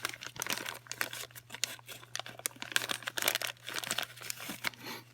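Packaging of a new PCV valve crinkling and rustling as it is opened by hand, a dense run of irregular crackles that thins out near the end.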